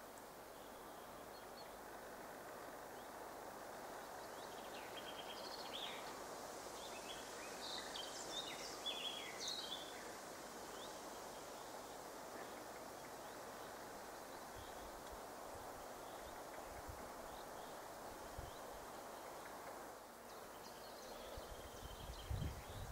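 Outdoor ambience: a steady low rush of background noise with birds chirping and calling, busiest from about five to ten seconds in. A low rumble starts right at the end.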